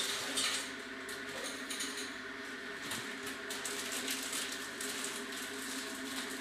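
Computer keyboard keys clicking irregularly as someone types, over a steady hum with several held tones.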